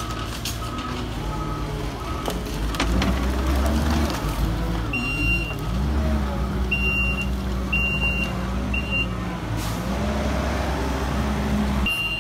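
Kubota SVL75-2 compact track loader's diesel engine running and revving up and down as it works a pile of demolition debris, with a few knocks. From about five seconds in, a high backup alarm beeps in short runs as the loader reverses.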